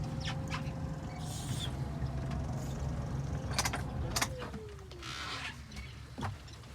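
Boat engine running steadily with a whine, then throttled back about four seconds in, the whine falling in pitch as it slows. A couple of sharp knocks come just before it slows, and a short hiss of water follows.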